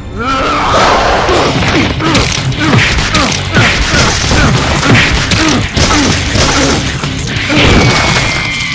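Cartoon fight sound effects: an angry scream, then a rapid flurry of punching and smashing hits, one after another, over music.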